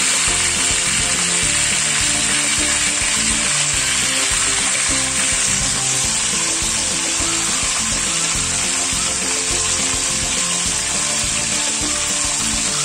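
A whole chicken frying in hot oil in a wok, the oil sizzling and bubbling steadily around it.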